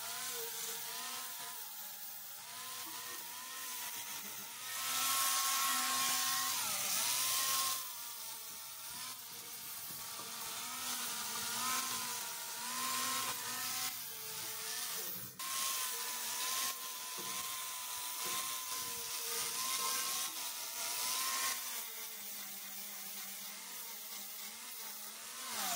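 Hand-held angle grinder with a 60-grit Diablo flap disc grinding rust off an iron railing: a steady high motor whine that wavers and dips as the disc bites the metal, over a grinding hiss. It is louder for a few seconds about a fifth of the way in, and the whine slides down as the grinder is switched off at the very end.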